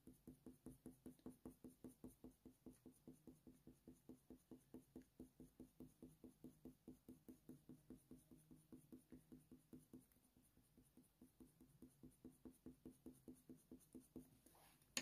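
Faint, quick strokes of a coloured pencil on hot-pressed watercolour paper, about four a second, breaking off about ten seconds in and then going on more sparsely.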